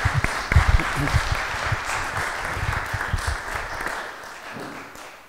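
Church congregation applauding, dying away near the end.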